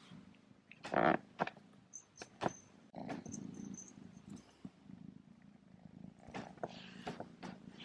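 Kitten purring, a low steady rumble, with a few sharp clicks and small jingles from the little bell on his collar in the first few seconds, the loudest about a second in.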